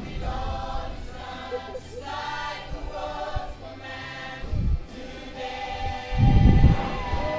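A choir singing in phrases. About six seconds in, a loud low rumble swells beneath the singing.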